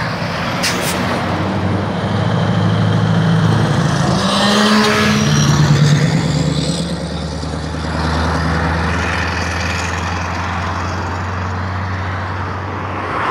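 Scania R620's V8 truck engine with a straight-piped exhaust running as the truck pulls past, a low steady note that shifts in pitch and is loudest around five to six seconds in, then carries on as it drives away. A short hiss about a second in.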